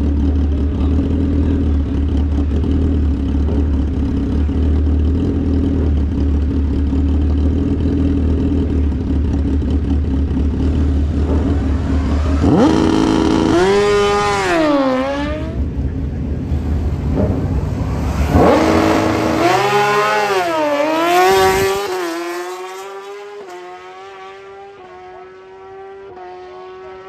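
Drag-racing sport motorcycle: a steady low rumble, then the engine revved hard and swept up and down in a water-box burnout, the rear tyre spinning on the wet track. It then launches down the strip, the engine note rising in steps through the gear changes as it fades away.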